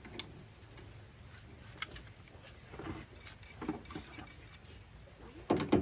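Scattered light metallic clicks and knocks as rivet nuts are handled and set with a hand tool, with a louder clunk near the end.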